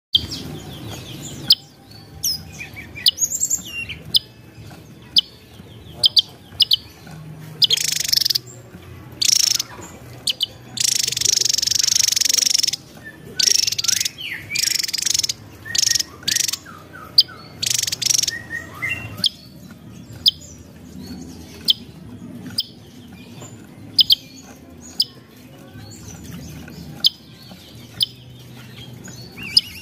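Javan tesia calling: scattered short, sharp, high notes, with a run of loud, dense bursts of rapid song, each a second or two long, from about 8 to 19 seconds in.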